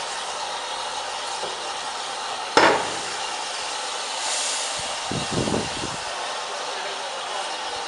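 Steam locomotive standing on a turntable with a steady hiss of steam. A single loud metallic clank comes about two and a half seconds in, then a brief burst of hiss, then a few quicker knocks around five seconds in.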